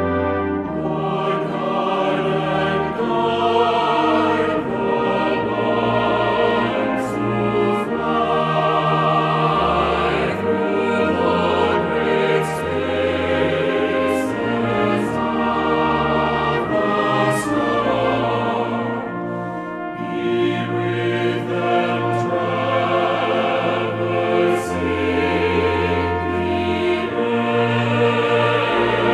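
Orchestral background music with brass and a choir, sustained chords changing every second or so, with a few sharp percussion strikes.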